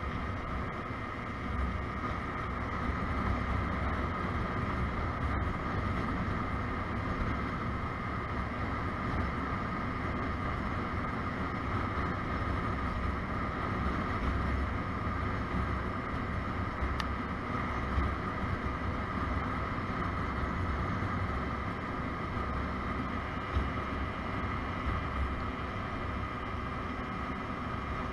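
A 50cc Motobi BS1 scooter engine, partly derestricted, runs steadily at cruising speed under wind rumble on the microphone.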